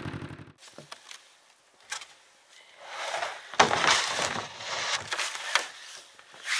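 Snowmobile engine running steadily, then switched off about half a second in. After it comes the handling of plastic water jugs on a sled's cargo box, with crunching steps in snow and scattered knocks; the loudest is a sharp knock about three and a half seconds in.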